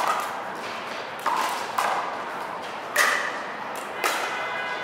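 Hollow plastic pops of a pickleball struck by paddles and bouncing on the concrete court, five in all, the loudest about three seconds in.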